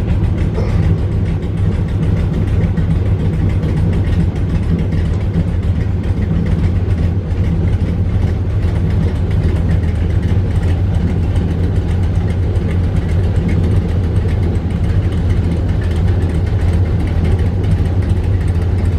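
Airboat engine idling, a steady low running sound.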